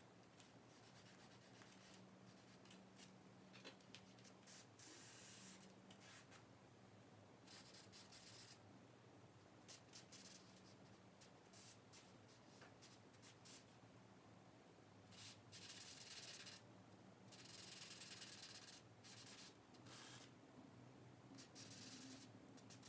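Faint scratching and rubbing of vine charcoal and a pink eraser on sketchbook paper, in irregular strokes that grow louder and longer in the last third. A faint steady low hum runs underneath.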